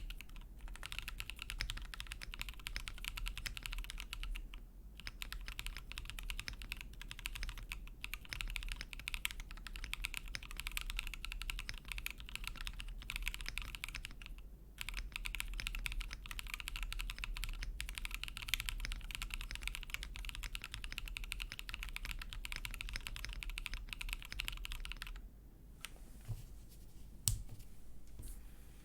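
Fast, steady typing on a gasket-mounted TeneT custom mechanical keyboard with light tactile switches (Geon baby blue tactile sliders in Gateron Gift housings, 55 g springs, PC plate with plate foam). There are brief pauses about five and fifteen seconds in, and a quieter stretch near the end broken by one sharp clack.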